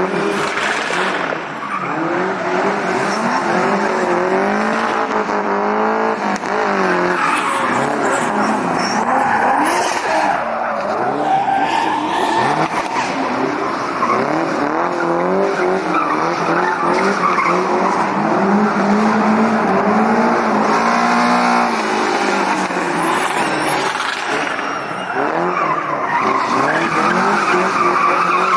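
Classic BMW 02-series rear-wheel-drive car drifting, its engine revving up and down over and over with tyres squealing and skidding on the asphalt.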